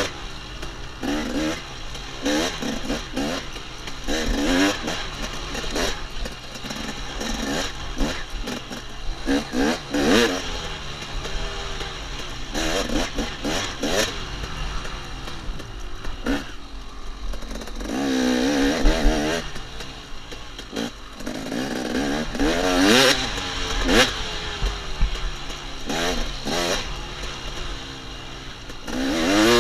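KTM 250 XC two-stroke dirt bike engine revving up and down over and over as the throttle is opened and shut every second or two, with one longer held rev about two-thirds of the way through.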